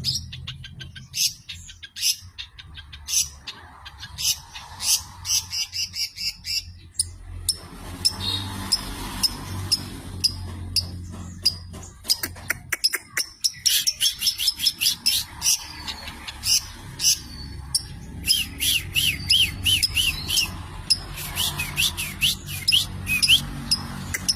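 Long-tailed shrike (cendet) singing: rapid runs of sharp, high chirps, fast chattering note series and repeated looping whistles, one phrase after another with hardly a break.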